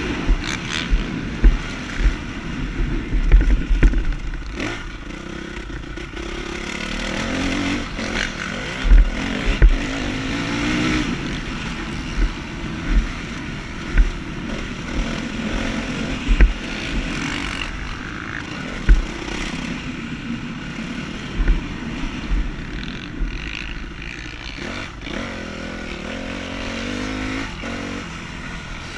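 Motocross bike engine revving up and down as it is ridden over a dirt track, with a steady rushing noise and repeated sharp low thumps as the bike and camera are jolted over bumps.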